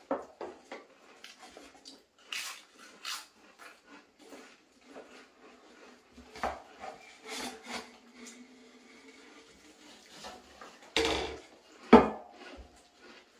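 Pringles crisps being crunched and chewed by several people, with small clicks and rustles of the cardboard tubes, then two sharp knocks near the end as a Pringles tube is set down on the wooden table, the second the loudest.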